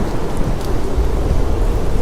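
Steady heavy rain with a deep, continuous low rumble underneath and a few faint light ticks on top.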